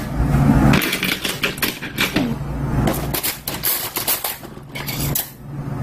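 Metal spoon clinking and scraping against an earthenware bowl of sundae gukbap: a quick, uneven run of sharp taps and clicks.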